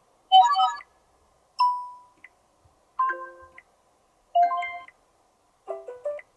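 Sony Xperia 5 III smartphone playing its notification tones in turn: five short chimes and dings, each a different tone, with short pauses between them.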